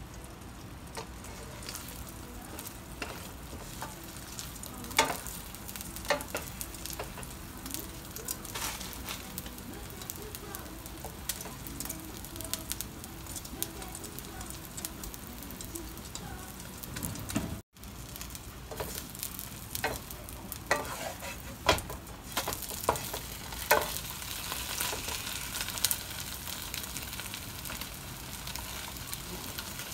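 Egg frying in a nonstick pan, a steady sizzle, with a wooden spatula scraping and tapping against the pan now and then. The sound drops out for an instant just past halfway.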